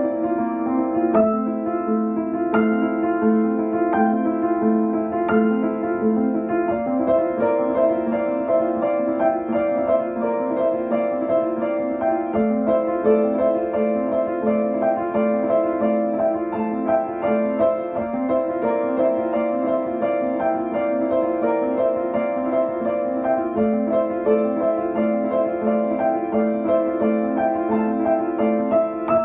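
Soft piano background music, playing gently repeated notes and chords.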